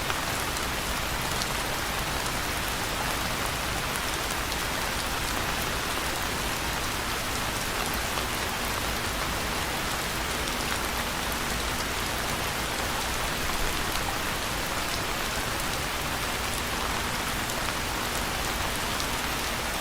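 Steady rain falling, a constant hiss flecked with the small ticks of individual drops striking a surface.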